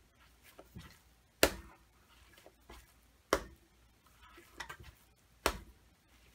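Soft, wet pizza dough slapped down onto a stone worktop three times, about two seconds apart, during lift-slap-and-fold reinforcing folds. Quieter handling noises of the hands on the dough come between the slaps.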